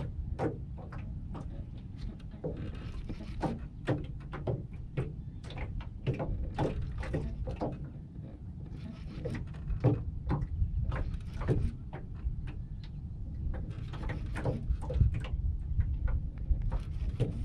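Irregular clicks and knocks of a fishing rod and reel being cranked against a hooked catfish, over a steady low rumble of wind on the microphone.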